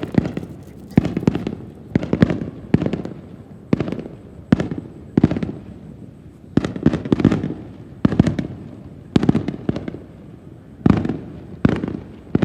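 Fireworks display: aerial shells bursting in a steady series of sharp bangs, about one or two a second, some in quick pairs, each trailing off.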